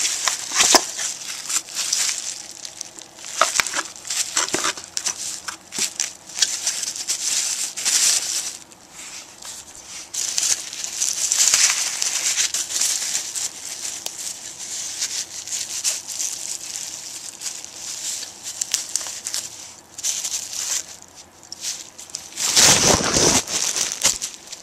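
Clear plastic packaging crinkling and rustling in irregular bursts as a CPU waterblock is unwrapped and handled. There is a much louder burst of rustling near the end.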